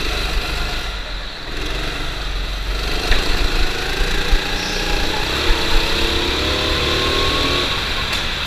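Go-kart engine running under throttle, its pitch climbing as the kart accelerates out of a corner along a straight. Heavy low rumble of wind and vibration on the onboard microphone, with a few sharp knocks.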